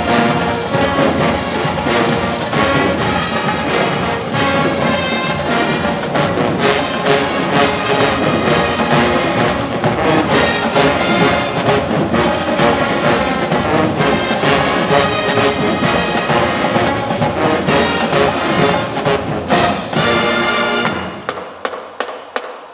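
Marching band playing loud brass music over a drumline, the horns and tubas carrying the tune over steady drum strokes. Near the end the low brass drops out and the music breaks into short, separate sharp hits.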